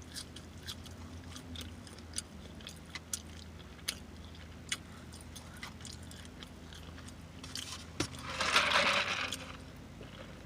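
Close-mic mouth sounds of someone eating a crispy fried spicy chicken sandwich: chewing and lip smacking, with scattered wet clicks over a low steady hum. Near the end a louder rushing sound lasts about a second and a half.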